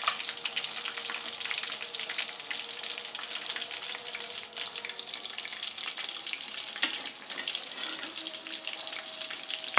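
Pieces of fish frying in hot ghee in a pan, a steady crackling sizzle.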